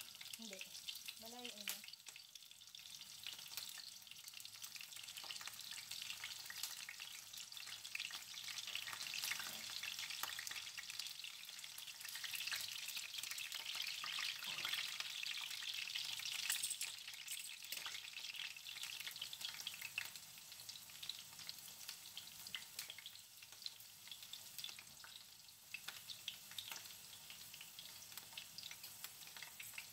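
Kabocha pumpkin slices sizzling and crackling in shallow oil in a frying pan. The sizzle grows louder in the middle, while more slices go in and are moved with tongs, then settles to a lighter crackle.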